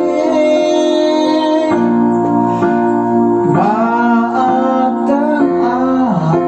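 Background music: a slow song with guitar and keyboard, a sung melody line sliding between held notes.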